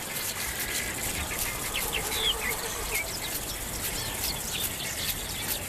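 Wild birds calling in the bush: scattered short chirps and clicks over a faint low rumble, with a quick run of about eight low, evenly spaced notes about two seconds in.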